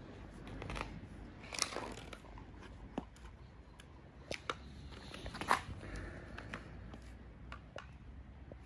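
Scattered light clicks and rustling from a plastic retractable dog leash handle being handled by a toddler, a few sharper clicks among them.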